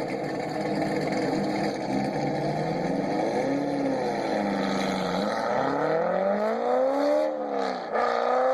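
Chevrolet Corvette V8 running steadily, then accelerating: the engine's pitch climbs from about five seconds in, drops sharply at a gear change near eight seconds, and climbs again.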